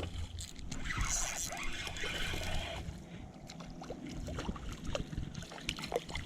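Running river water, with scattered light clicks and scrapes of handling.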